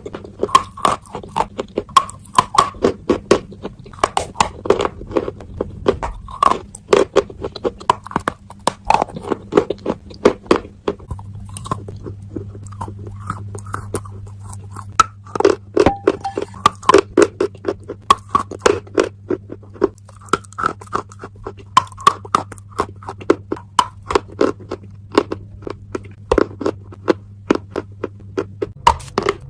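Sticks of chalk being bitten and chewed close to the microphone: repeated sharp, dry crunches, thinning to quieter chewing for a few seconds about a third of the way in.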